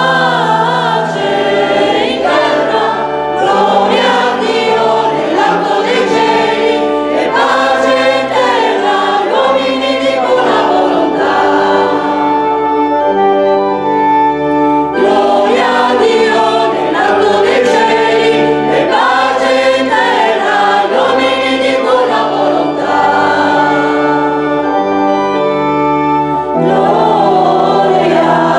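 Mixed church choir of women's and men's voices singing together in held chords, several voices on each part.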